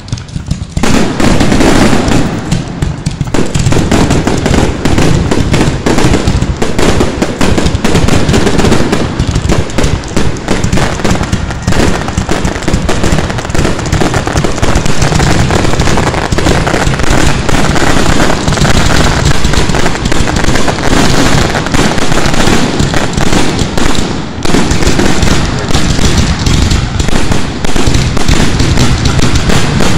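Fireworks fired from the ground at close range: a loud, rapid, unbroken barrage of launch thumps, bangs and crackling that picks up about a second in.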